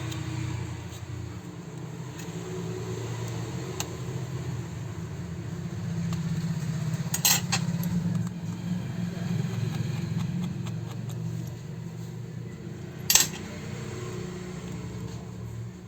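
Small metal and plastic clicks and clinks of repair tools and phone parts being handled while an Oppo A33F smartphone is opened, with two sharp clicks about seven and thirteen seconds in, over a steady low hum.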